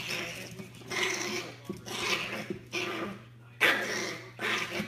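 Small dog growling and yapping in short bursts, about once a second.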